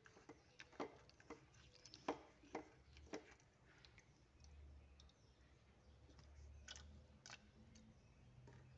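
Hands rubbing and rinsing small dried fish in a ceramic bowl of water: faint, sharp wet clicks and squishes, about ten in the first three seconds, then a few more near the end.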